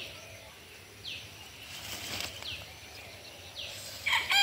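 Water hyacinth leaves rustling as plants are pulled by hand, with a bird giving short falling chirps about once a second. Near the end a rooster starts crowing, the loudest sound.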